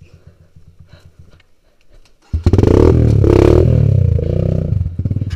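Kawasaki KLX 150 G single-cylinder four-stroke trail bike engine, quiet at first, then opening up loudly about two seconds in. Its revs rise and fall for about three seconds before easing off near the end.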